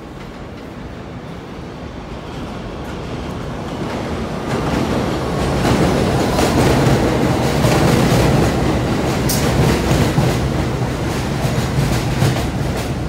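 New York City Subway R62A train arriving on the 1 line's elevated tracks, growing louder as it approaches and passes close by. Its wheels clatter over the rail joints, with a sharp high click about nine seconds in.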